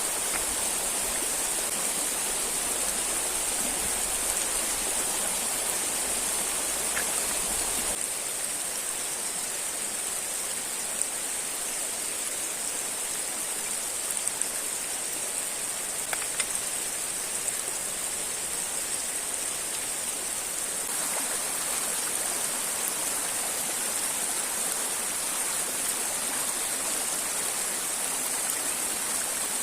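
River water and a waterfall rushing steadily, with a bright hiss. A low rumble drops away about eight seconds in, and a few faint ticks sound in the middle.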